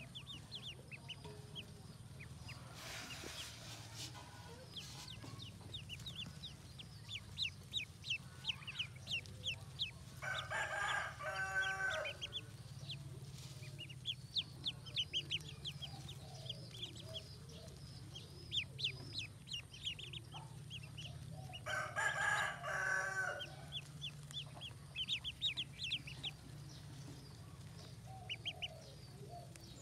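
A large brood of ducklings peeping constantly, many short high peeps a second. Twice, about ten seconds in and again about twenty-two seconds in, a louder, longer bird call lasting a second or so rises over the peeping.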